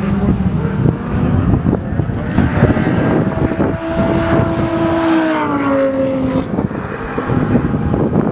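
Supercar engine running, its note holding steady and then falling in pitch about five seconds in.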